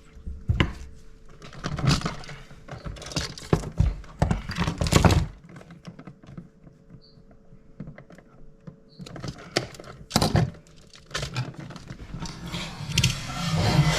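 Irregular clicks, knocks and rustles of hands handling stiff copper electrical wires and wire nuts, pushing them back into a wall outlet box, in several short clusters with quieter pauses between.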